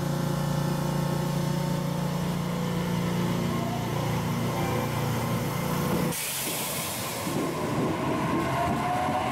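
JR Kyushu 817 series electric train pulling away from the platform: a steady low hum of its equipment, a sudden hiss of air lasting about a second, about six seconds in, then the motor whine rising in pitch as it accelerates.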